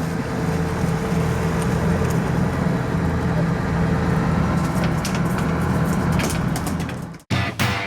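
Boat engine running steadily with a low drone. It cuts off abruptly about seven seconds in, and rock music with guitar starts.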